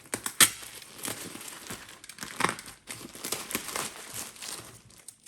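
Parcel packaging being opened by hand: packing tape pulled and torn, with crinkling, crackling wrapping and a sharp click about half a second in.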